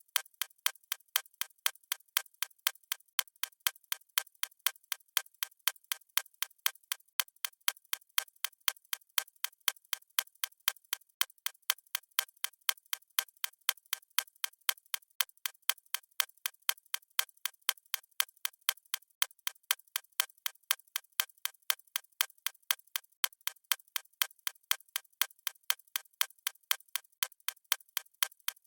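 Clock-style ticking sound effect: crisp, evenly spaced ticks at a steady pace, thin and without any low end.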